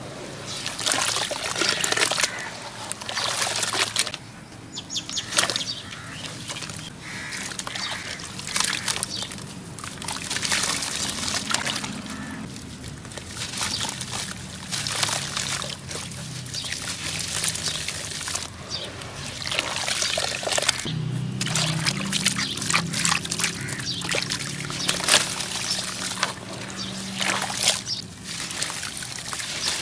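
Wet lumps of sand-cement and ash crumbling in the hands, the grit pouring and trickling from the fingers into a basin of water with small splashes.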